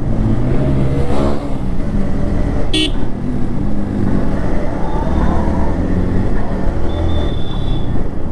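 Yamaha sport motorcycle engine running at town-street speed, heard from the rider's position, with its pitch rising briefly about a second in. A short horn toot sounds about three seconds in.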